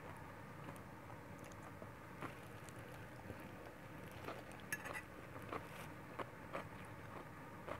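Faint, scattered clinks and scrapes of a metal fork against a plate as noodles are picked up and lifted, with one sharper clink a little before five seconds in.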